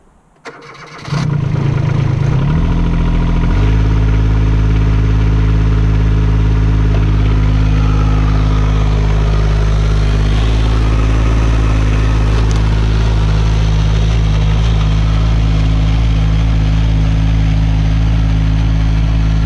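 Kubota K008 mini excavator's diesel engine, newly replaced, starting up about a second in and settling into a steady run. It steps up in speed a few seconds later and keeps running steadily as the machine tracks away.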